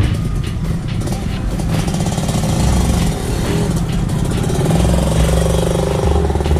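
Several dirt bike engines running together, with a steadier, louder engine note coming in about two and a half seconds in.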